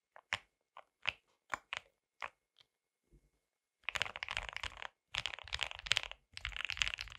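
KBD67 Lite R3 custom mechanical keyboard being typed on. It has lubed KTT Strawberry linear switches, cherry-profile doubleshot ABS keycaps, and an acrylic plate in a stacked acrylic gasket-mount case. Separate keystrokes come about three a second at first, then after a short pause fast typing follows in runs of about a second each.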